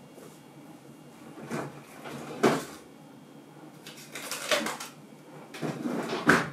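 Four short handling noises, rustles and knocks, the sharpest about two and a half seconds in.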